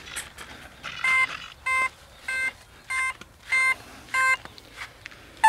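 Electronic speed controller of an E-flite Carbon-Z T-28 RC plane beeping through its electric motor just after the 6S flight battery is plugged in: six short, evenly spaced beeps about 0.6 s apart, then one brief higher chirp at the very end, the ESC signalling that it is powered and armed.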